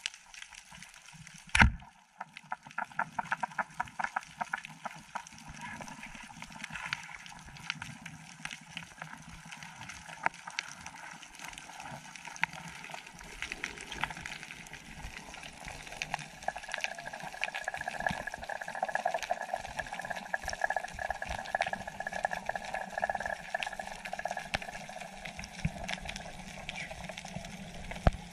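Underwater recording: a speargun fires with one sharp, loud crack about a second and a half in. A run of quick clicks follows, then steady underwater hiss and crackle, with a hum swelling in the second half.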